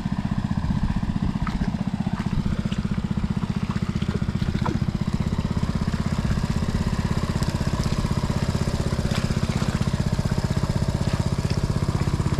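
Small stationary engine driving a water pump to drain a fishpond, running steadily at one constant speed with an even low chug. A few faint sharp ticks sound over it.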